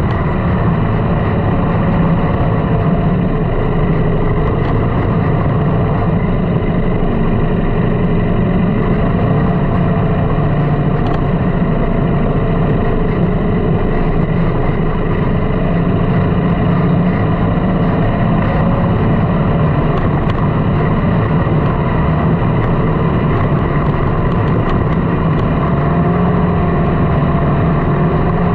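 Sand rail engine running steadily under load while driving over sand, its pitch wavering slightly with the throttle.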